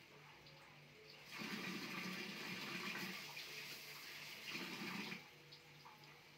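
Water running from a kitchen tap for about four seconds, starting a little over a second in and shutting off near the end.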